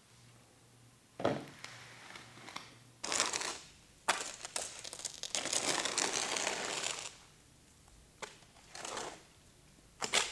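A garden rake scraping and dragging through a sand-and-cement mortar mix in a plastic mixing tub, in irregular strokes: a short scrape about a second in, another around three seconds, a long drag from about four to seven seconds, and a few short strokes near the end.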